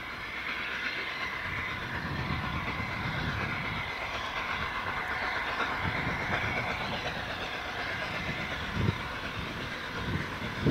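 A train running along the track, a steady rumble of wheels on rail, with a short knock near the end.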